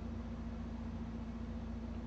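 Steady low electrical hum with a faint even hiss: background room noise, with no distinct event.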